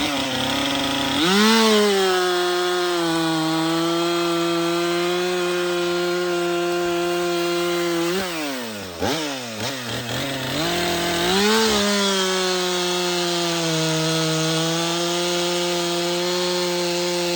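Stihl MS 400 two-stroke chainsaw running at full throttle through wood, in two cuts. It revs up about a second in and holds a steady high pitch, drops back with a few quick throttle blips around the middle, then revs up again and holds until near the end.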